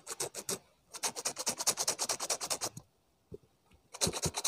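A knife blade scraping back and forth across denim in quick rasping strokes, roughening the jeans to fray them. The strokes come in three runs, the longest in the middle, with a pause of about a second before the last.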